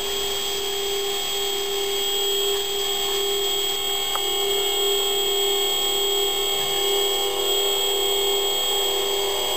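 Film soundtrack heard through a screen's speaker: a steady, unchanging drone with a high ringing tone above it, and a faint click about four seconds in.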